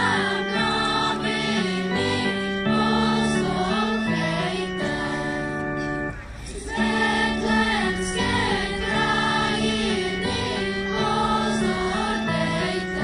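A children's choir singing a song to electronic keyboard accompaniment, heard through a PA system, with a brief break between phrases about six and a half seconds in.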